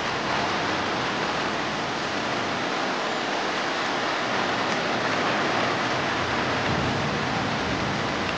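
Heavy rain pouring onto a wet road, a steady dense hiss.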